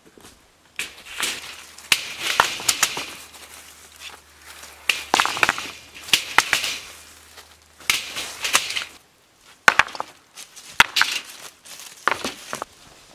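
Fieldstones being handled and set into a steel-mesh garden wagon: bunches of sharp clacks and knocks of stone on stone and on the wagon's metal frame, coming every second or two.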